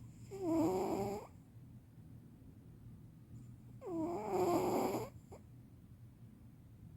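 Elderly cat snoring in its sleep: two snores about three and a half seconds apart, each lasting about a second.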